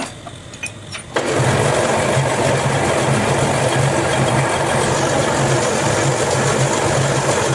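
A powered machine starts abruptly about a second in and runs steadily and loudly, a noisy rush over a pulsing low hum.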